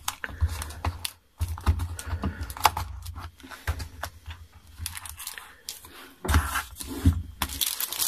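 A small cardboard box being handled and opened: irregular clicks, taps and paper rustles as its lid, insert and paper leaflet are moved and lifted out.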